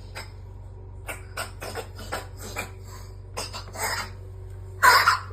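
A cat reverse sneezing: a rapid, irregular run of short, sharp noisy inhalations, several a second, with a longer, louder one near the end.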